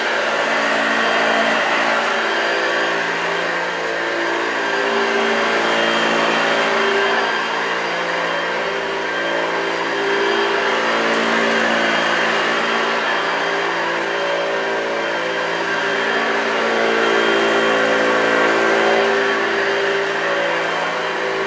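1982 Hoover Junior U1104 upright vacuum cleaner running, its motor whirring steadily with a pitched hum, the loudness swelling and dipping a little.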